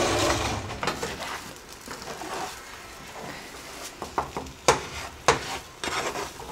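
Scrambled eggs sizzling in a frying pan while a utensil stirs and scrapes them, with a few sharp scrapes or knocks against the pan in the second half. The egg is sticking to the pan.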